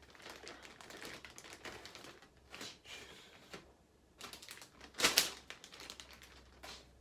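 Plastic anti-static motherboard bag rustling and crinkling as it is handled, with irregular light clicks and taps, and one louder crinkle about five seconds in.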